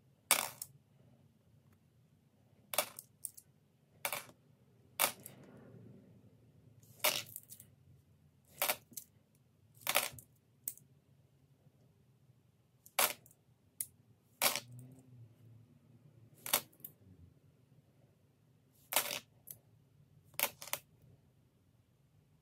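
Australian $1 coins clinking against each other as they are handled, with a sharp clink every second or two at an uneven pace.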